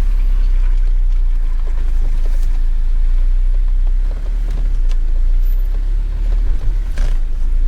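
Jeep engine running at low revs as it crawls over a rough trail obstacle: a steady low rumble, with a sharp knock about seven seconds in.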